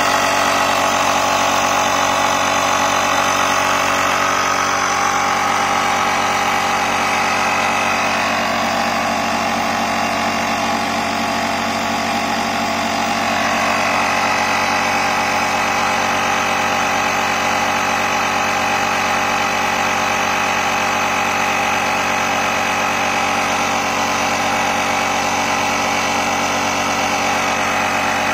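Motomaster Eliminator 1400 booster pack's built-in air compressor running steadily, pumping up a car tyre as its pressure readout climbs past 27. Its tone shifts slightly around the middle.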